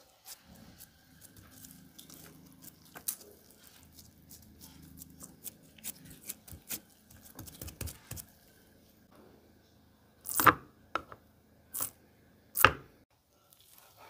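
Gloved hands squishing and patting raw ground beef down into a burger press, with soft crackling and clicking from the gloves on the meat over a low steady hum. Near the end come three sharp knocks as the press parts are handled.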